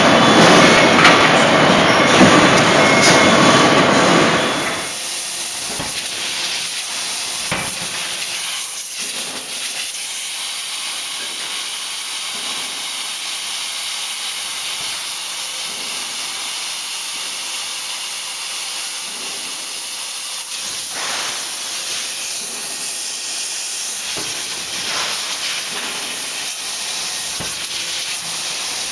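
Forge-shop machinery noise: a loud clattering rush for the first few seconds, then a sudden drop to a steady hiss with a few faint knocks, around a CNC hydraulic die forging hammer.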